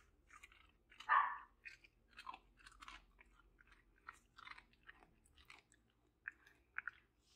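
Small dog chewing a treat: a run of short, irregular crunches, the loudest about a second in.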